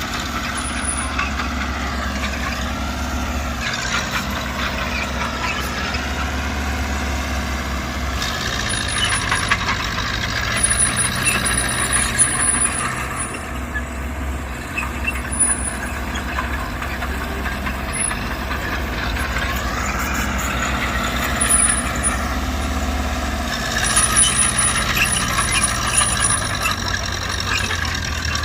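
Heavy earthmoving machine's diesel engine running under load, its pitch rising and falling several times as it works, with scattered metallic clanks and knocks.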